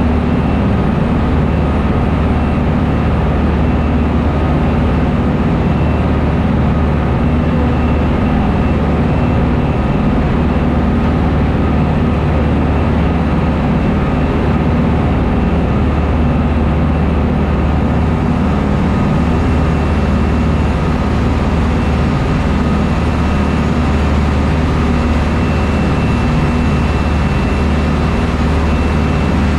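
Engines of a small passenger shuttle boat running steadily under way, a loud constant low drone, with the wake rushing along the hull.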